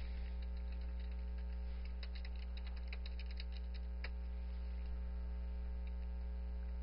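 Steady electrical mains hum, with a run of faint, quick keyboard clicks about two to four seconds in as log-on credentials are typed.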